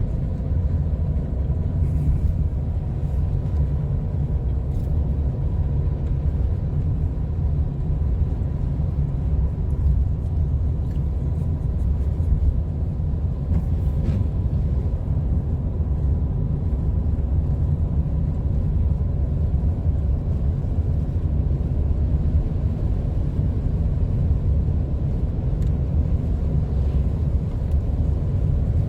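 Steady low rumble of a car driving on a snowy, slushy road, heard from inside the cabin: engine and tyre road noise.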